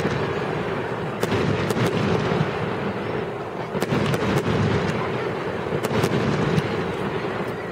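Aerial firework shells bursting in a public display: a dozen or so sharp bangs, sometimes two or three close together, over a continuous low rumble.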